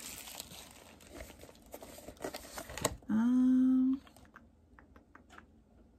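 Cardboard and plastic packaging of a Funko mystery mini box crinkling and rustling with small clicks as it is opened, with a sharp click near three seconds in. Right after comes a loud, steady one-second tone, then only a few faint clicks.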